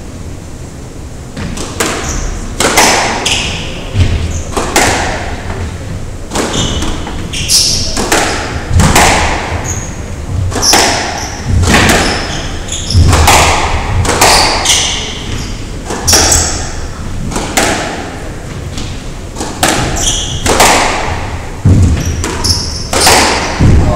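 A squash rally: the ball struck by racquets and hitting the court walls in a run of sharp thuds and bangs, roughly one a second, echoing in the court.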